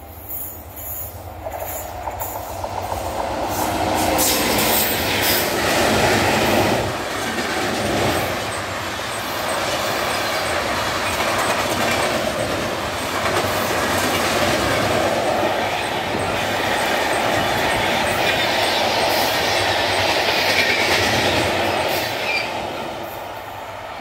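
Express passenger train behind a WAP-7 electric locomotive running past close by at speed, its wheels rolling over the rail joints in a continuous rumble. It builds to full loudness within the first few seconds and eases off near the end as the last coach goes by.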